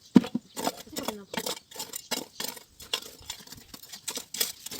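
Irregular clinks, knocks and scrapes of hand work on a brick fire pit: bricks and stones being handled and a digging tool scraping in the soil and rubble.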